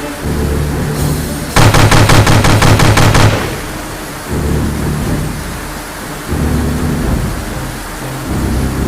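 Dubbed-in machine-gun sound effect: one rapid burst of about nine shots a second, lasting under two seconds and starting about a second and a half in. It plays over a low-pitched sound that swells and fades several times.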